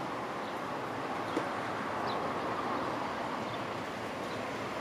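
Southern electric multiple-unit train approaching the platform: a steady rushing rumble of wheels on rail that swells slightly as it draws nearer.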